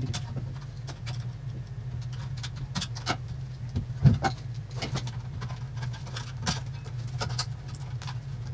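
Scattered clicks, taps and light knocks of hands handling the opened KORAD KKG305D power supply's metal chassis and parts, the loudest knock about four seconds in, over a steady low hum.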